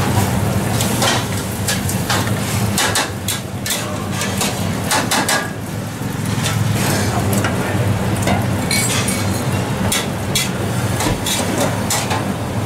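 Metal spatulas clanking and scraping against steel woks as fried rice is stir-fried, with irregular sharp strikes scattered through, over a steady low hum from the gas wok burners.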